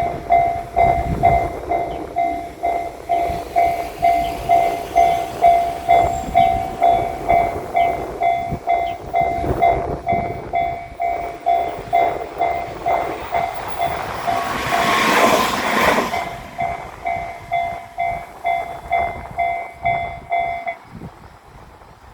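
Railroad crossing warning bell ringing in a steady, evenly repeating 'kan-kan' while a train runs through the crossing with rumble and wheel clatter. About two-thirds of the way through, the loudest moment comes as a brief rush of train noise. The bell stops shortly before the end.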